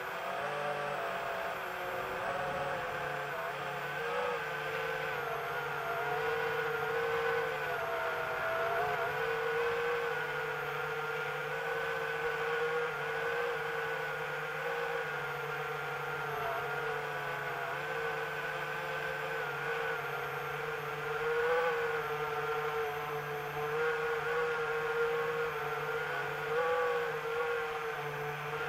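Multirotor drone's motors and propellers whirring steadily, picked up by its onboard camera, the pitch wavering up and down a little as the throttle changes.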